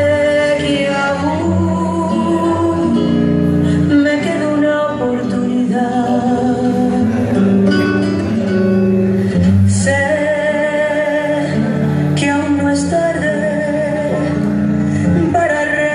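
A song playing loud: a singer holding long notes with a strong vibrato over sustained accompaniment.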